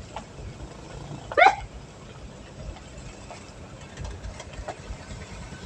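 A dog barks once, loud and short, about a second and a half in, over a steady low vehicle rumble.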